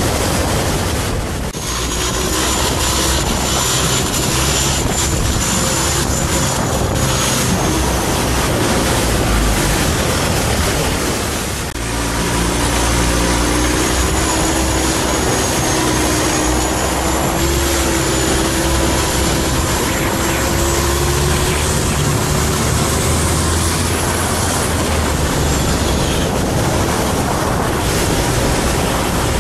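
Long-tail boat's engine running steadily at speed, a loud drone with a thin whine above it, over water rushing past the hull. The level dips briefly twice.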